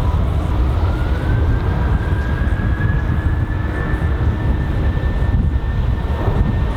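Boeing 737-700 jet engines at takeoff thrust: a deep, heavy rumble with an engine whine that climbs in pitch over the first second or so, then holds steady.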